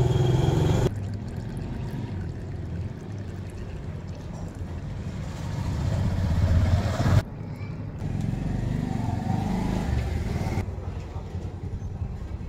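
Low rumble of motor vehicles, changing abruptly a few times.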